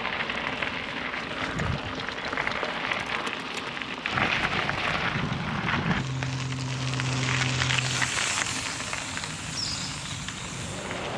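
Riding noise from a touring bicycle: tyres crackling over a gravel surface, with wind on the action-camera microphone. A brief steady hum joins in about six seconds in and lasts about two seconds.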